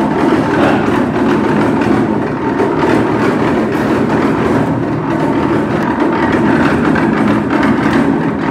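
Large-scale kitchen machinery running steadily: a continuous drone with a rattling texture and a faint steady tone, around a motor-driven stainless-steel cooking drum.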